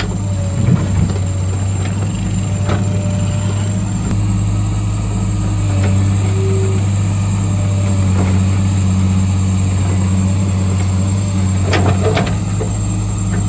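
Heavy diesel engine of an earthmoving machine running steadily under load with a low hum, with a few faint knocks of work in between.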